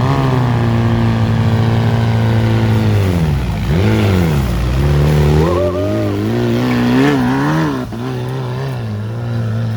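Off-road 4x4 engine revving hard under load as the vehicle pushes through a deep, muddy section. The revs dip sharply about three and a half seconds in, then climb again and rise and fall repeatedly.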